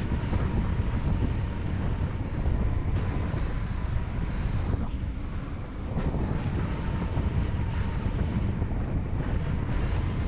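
Wind rushing and buffeting over the microphone of a paraglider in flight, a steady rough noise heaviest in the low end.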